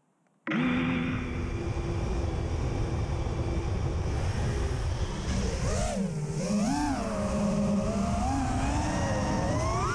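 Four brushless motors and propellers of a 5-inch FPV racing quad (T-Motor F40 v3 2400 kV motors on a 5S battery), heard through its own onboard camera. They cut in about half a second in with a steady idle whine. From about five and a half seconds in the whine swings up and down in pitch with the throttle as the quad takes off and flies.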